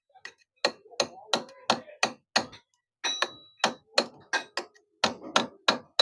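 Hammer striking metal in a quick run of sharp, ringing blows, about three a second with a brief pause midway, knocking back the lock on the clutch hub so the clutch housing of a Yamaha FZS can be removed.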